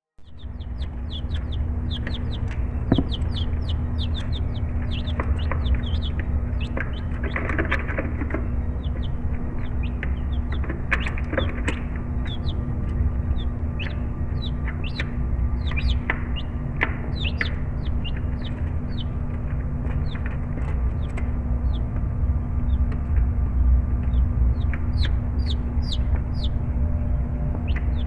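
Young Buff Orpington chicks peeping, many short high peeps in quick succession, over a steady low hum.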